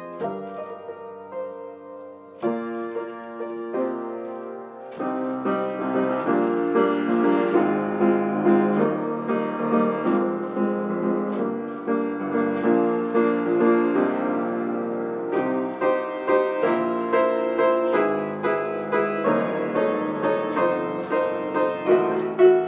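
Upright piano playing a chord progression: a few spaced chords left to ring at first, then louder, fuller playing with notes struck more often from about five seconds in.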